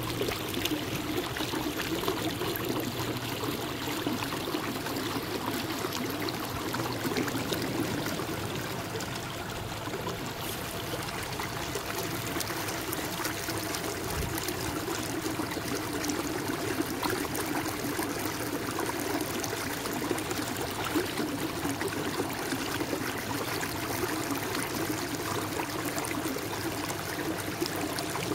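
Steady water trickling and splashing around a kayak as it is paddled, with water running off the paddle blades.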